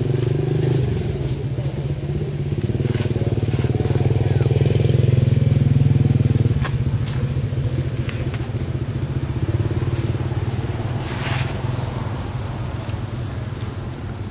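A small engine running steadily, a low even hum that swells in the middle and then eases. Scattered short clicks and crackles sit over it, with a longer rustle about eleven seconds in.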